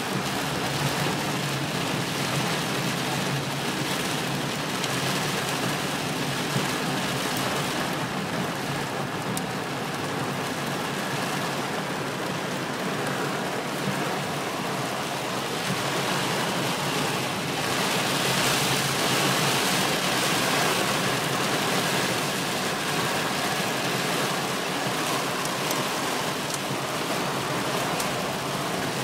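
Heavy rain drumming steadily on a car's roof and windscreen, heard from inside the car. It swells for a few seconds about two-thirds of the way in.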